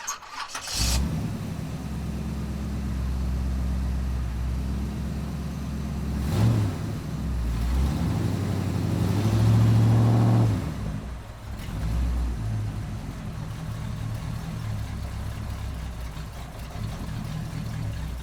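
Car engine running, revving up with a rising pitch about nine seconds in before dropping back.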